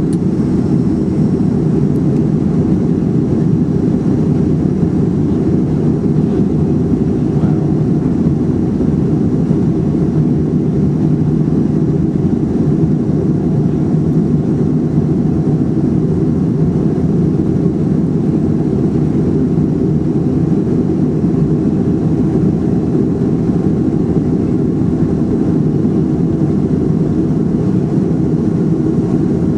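Cabin noise of a Boeing 737-400 taxiing on its CFM56 engines at low thrust: a steady, loud rumble and hum that holds even throughout, heard from inside the cabin over the wing.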